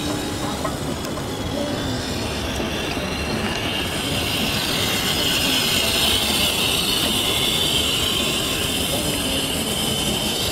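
HSP Flying Fish 1:10 electric RC drift car driving on asphalt: its motor and drift tyres make a steady hiss that grows louder as the car passes close, from about four seconds in until near the end.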